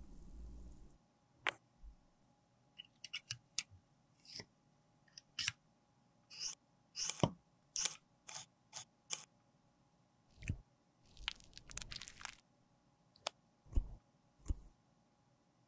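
Fingers in rubber finger cots handling a plastic lipstick case against a metal lipstick mold as the case is fitted over it and the lipstick is pushed out. The sound is a string of scattered short clicks and brief rubbing squeaks, with pauses between them; a low steady noise cuts off about a second in.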